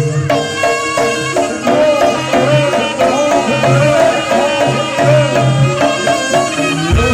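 Live Javanese jaranan ensemble music: hand drums beat steadily under a wavering melody line and other pitched instruments.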